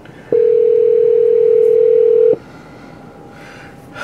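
Telephone ringback tone on an outgoing call: one steady two-second ring, starting a moment in, the sign that the dialled phone is ringing and has not yet been answered.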